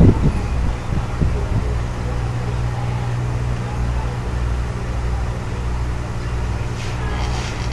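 Aquarium air pump humming steadily, driving the bubble curtain in a goldfish tank. A few soft knocks sound in the first second and a half.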